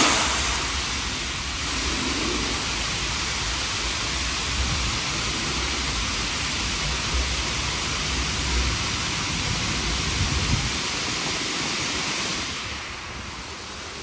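A WashTec SoftCare² Pro rollover car wash's fixed side high-pressure nozzles spraying water against the car at 40 bar, a steady loud hiss with a low rumble under it. It starts abruptly and dies down near the end.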